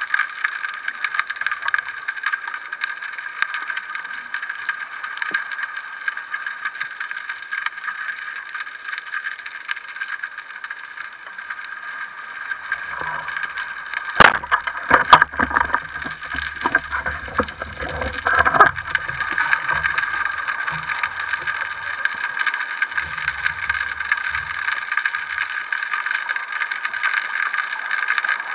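Underwater reef ambience picked up by a speargun-mounted camera: a steady dense crackle. About halfway through a single sharp, loud crack, the speargun firing at a gilthead sea bream, is followed by about four seconds of low rumbling and rattling.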